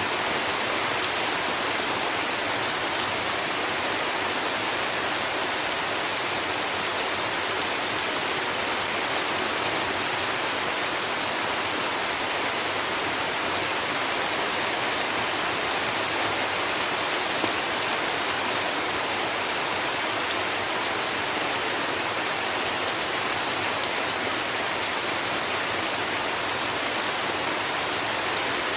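Steady heavy rain falling: an even hiss that doesn't rise or fall, with faint scattered drop ticks.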